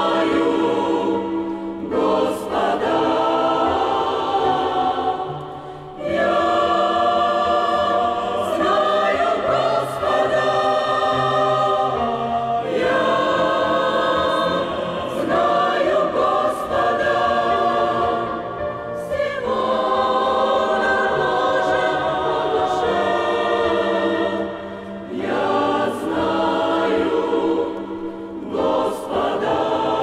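Church choir singing a hymn in Russian, in phrases of about six seconds with short breaks between them.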